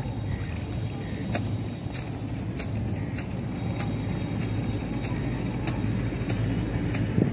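A steady low engine rumble, with a sharp tick repeating about every 0.6 seconds.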